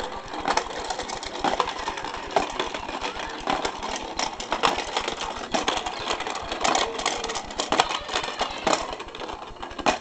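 A plastic toy animal rolling around the spiral track of a baby's activity toy, a continuous fast clattering rattle of plastic on plastic.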